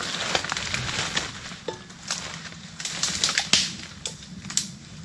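Footsteps pushing through dense forest undergrowth: leaves and stems rustling, with twigs snapping and cracking underfoot several times, the loudest crack about three and a half seconds in.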